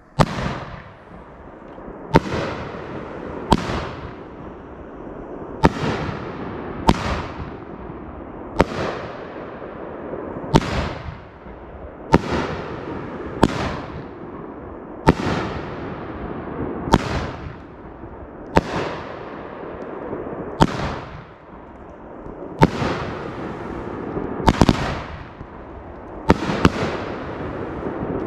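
A 500-gram, ten-shot consumer firework cake (Dominator Mammoth Peony) firing its 2-inch shells one after another. There is a sharp report every one to two seconds as shells lift and break, each trailing off in a rolling echo.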